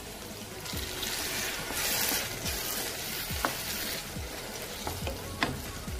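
Mutton keema sizzling in a nonstick pan as water is stirred into it with a wooden spoon. The hiss swells from about a second in to about four seconds in, and the spoon clicks sharply against the pan a couple of times near the end.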